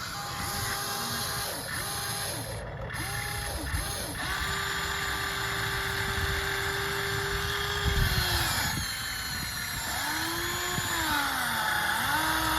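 Electric motors of a Huina 1593 radio-controlled excavator whining as its functions are worked: several short starts and stops at first, one long even run, then the pitch sags and recovers twice as the motor comes under load.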